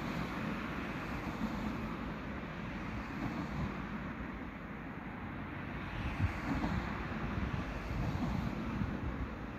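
Wind buffeting the microphone in gusts over a steady, distant rumble of road traffic.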